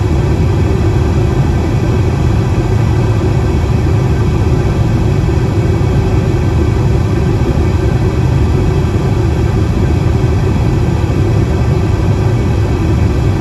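Steady drone of an airliner's engines and rushing air heard inside the passenger cabin during the climb after takeoff, heaviest in the low range.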